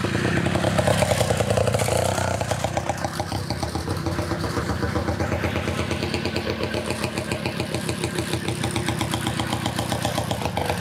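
Rex TT 150cc motorcycle engine running steadily with a rapid, even beat. It is a little louder in the first couple of seconds as the bike rides up.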